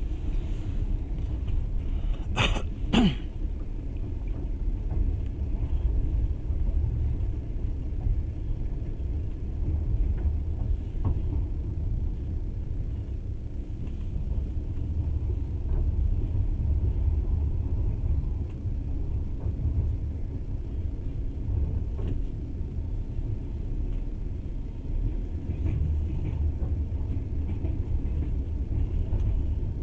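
Passenger train running, a steady low rumble heard from inside the carriage. Two short sharp sounds come close together about two and a half seconds in.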